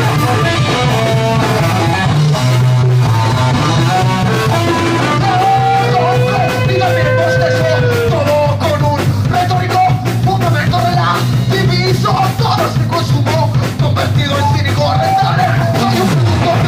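Punk rock band playing loud and live: electric guitars, bass and drums, with a singer's voice over them.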